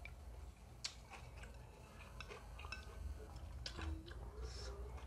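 A man eating noodle soup from a ceramic bowl: sipping and chewing, with scattered small clicks of wooden chopsticks against the bowl.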